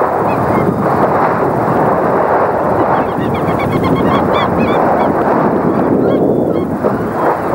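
Many birds calling, short repeated rising-and-falling cries overlapping in a chorus that sets in about three seconds in, over a loud steady rushing noise.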